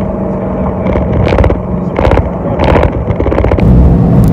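Dodge Charger heard from inside the cabin while driving: a steady engine hum with road noise and a few short knocks, then the engine growing louder near the end as it pulls harder.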